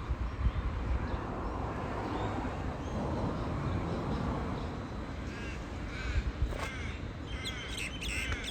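Birds calling in a quick run of short, arching calls in the last couple of seconds, over a steady low rumble.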